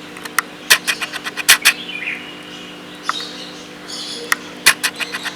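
Birds chirping in short, sharp notes, in two quick clusters: about a second in and again near the end.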